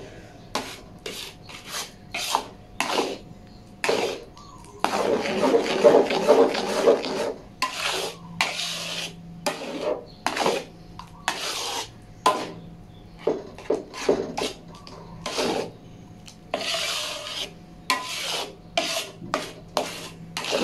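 Metal spatula scraping around an aluminium wok as it stirs a thick chocolate batter of melted margarine, milk, Milo and cocoa for kek batik. It goes in repeated short, uneven strokes, with a longer continuous scrape about five seconds in.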